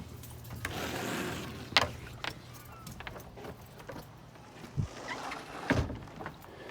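A door being opened on the way outside: a sliding rush about a second in, sharp clicks and knocks, then two low thumps near the end.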